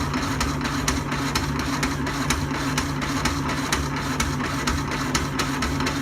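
Jefferson power hacksaw running through a cut: a steady electric-motor hum with a fast, even ticking of about five a second.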